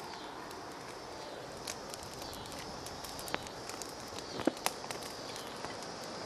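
Freshly lit campfire crackling, with irregular pops and a few sharper snaps around the middle, over a steady hiss.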